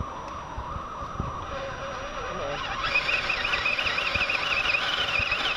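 Electric motor and gear drive of a radio-controlled scale rock crawler whining as the truck creeps over rock; about three seconds in the whine gets louder and higher, wavering in pitch with the throttle.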